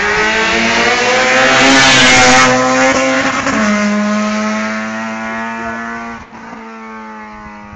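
Honda K20 inline-four on individual throttle bodies, in an EG6 Civic, accelerating hard away. The pitch climbs through one gear, drops at an upshift about three and a half seconds in, and the sound then fades as the car pulls into the distance.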